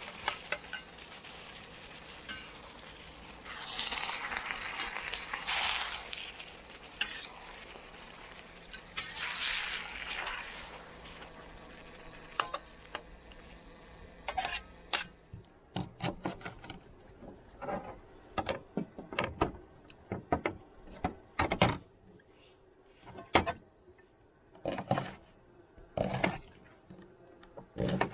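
Camp cookware and utensils clinking and scraping: a run of sharp knocks and clinks through the second half, after a couple of bursts of rustling in the first half.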